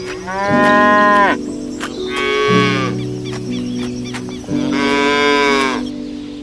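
Cow mooing three times, each call about a second long and dropping in pitch at its end, over background music.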